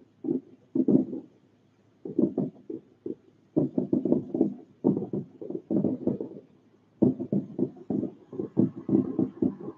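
Distant fireworks booming in a rapid barrage at the climax of the show: clusters of low, dull thuds and rumbles follow one another closely, with two short lulls.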